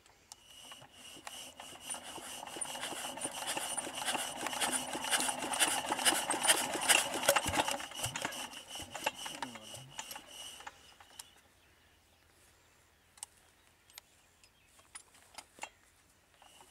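Old Petter diesel engine being turned over by hand without catching. A whirring, clicking mechanical run builds up, then dies away with its pitch falling as the engine coasts to a stop about two-thirds of the way through, followed by a few scattered clicks. It is a hard start, which the owners put down to rain water in the cylinder head.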